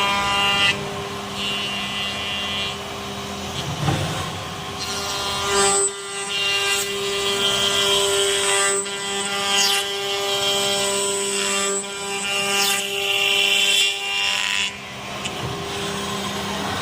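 CNC dovetail machine running with a steady motor whine; from about six seconds in until near the end its cutters work into wood, and the whine grows stronger with a rasping hiss over it.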